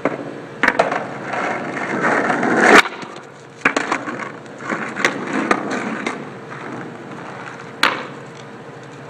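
Skateboard on asphalt: wheels rolling with a rough grinding noise, broken by several sharp clacks of the board slapping and knocking on the ground. The loudest clack comes about three seconds in, at the end of a stretch of rolling that grows louder.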